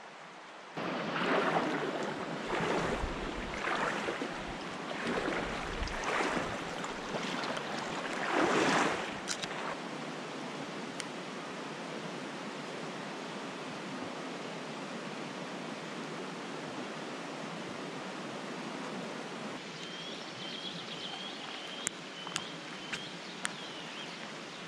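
Steady rush of flowing river water, with a run of rhythmic rustling surges about once a second through the first nine seconds. A bird chirps repeatedly near the end.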